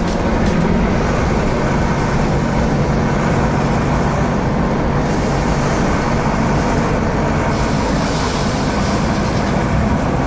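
A vehicle engine running steadily with a dense, even noise, from a construction-machine cartoon's sound effects.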